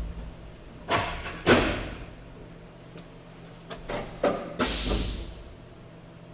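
Workshop handling noises: two knocks about a second apart, a few small clicks, then a half-second rushing burst, over a faint steady hum of machinery.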